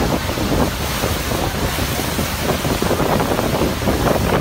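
Steady roar of Niagara's Horseshoe Falls and the churning water at its foot, with heavy wind buffeting on the microphone.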